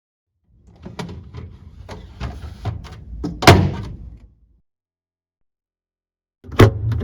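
Chilled shelf of a Sharp SJ-GK/SJ-MF/SJ-MW refrigerator being fitted: a run of plastic clicks and knocks as it slides in, with one loud knock about three and a half seconds in as it goes home. Another short clatter of knocks comes near the end.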